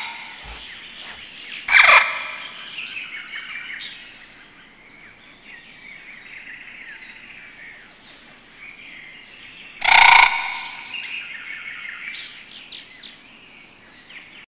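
Bird-like chirps and calls throughout, with two much louder calls, one about two seconds in and one about ten seconds in, each trailing off.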